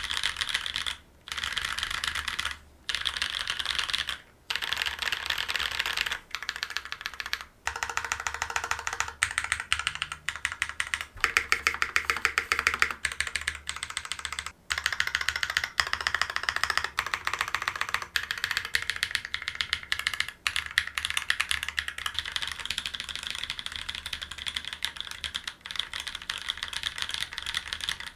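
Fast typing on a Space65 R1 mechanical keyboard with Holy Panda tactile switches and GMK Apollo keycaps: a dense run of key clacks, broken by short pauses a few times in the first eight seconds and once more about halfway through.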